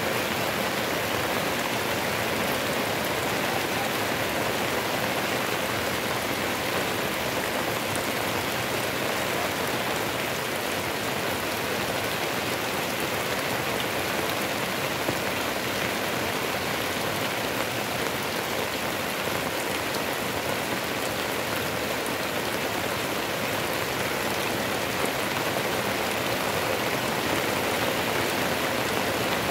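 Heavy rain falling steadily on roofs, with water pouring off the eaves.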